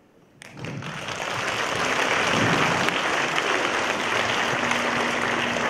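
Audience applause, swelling up about half a second in and holding steady. A faint low sustained musical note comes in near the end.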